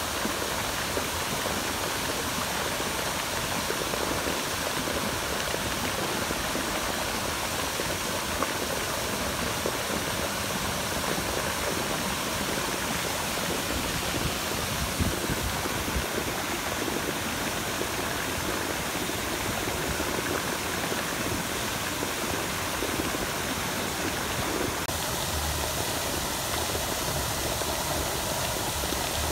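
Large fountain jets spraying up and splashing back down into a reflecting pool: a steady rush of falling water.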